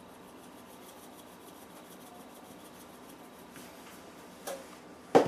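Stainless steel pepper shaker shaken over a dish, a faint, quick rattle of ground pepper. Near the end comes a sharp knock.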